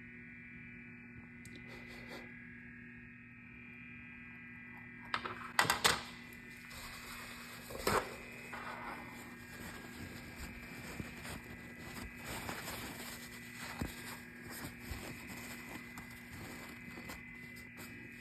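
Faint clicks and small taps over a steady low hum, with a few sharper clicks about six and eight seconds in.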